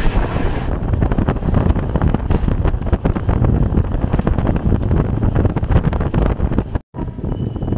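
Wind buffeting the microphone at the open door of a moving train, over the rumble and quick clatter of the coach's wheels on the track. The sound cuts out for a moment about seven seconds in and comes back quieter.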